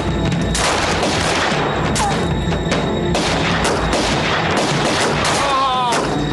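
Gunfight: repeated rifle shots over dramatic background music, with a cry near the end.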